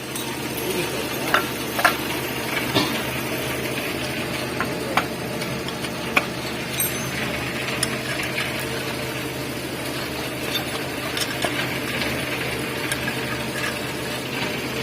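Scattered light clicks and taps, a dozen or so spread irregularly, over a steady hum and hiss: tools and engine parts being handled while a Mitsubishi L300 diesel engine is assembled.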